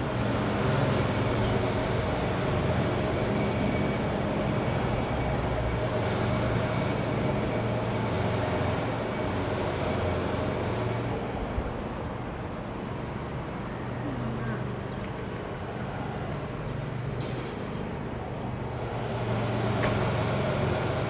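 Low, steady engine drone of background traffic, louder at first, easing off past the middle and swelling again near the end, with a brief click late on.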